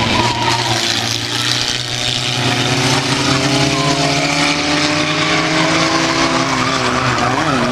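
Engines of several small banger-racing cars running and revving as they race round the track together. Their overlapping engine notes rise slowly from about two and a half seconds in.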